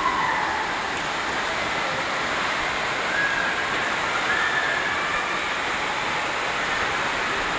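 Rain falling on a corrugated metal-sheet roof, heard from inside the large hall beneath it as a steady, even hiss.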